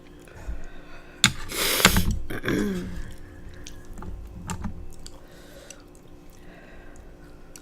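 Close-miked eating sounds: small wet mouth clicks and chewing, with one loud hissing slurp of noodles a little over a second in, followed by a short falling sound.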